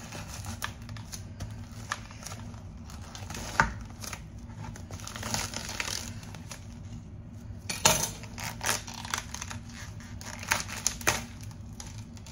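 A head of cauliflower being cut and broken into a smaller portion: scattered crisp snaps and cracks with crinkling, rustling handling in between, over a low steady hum.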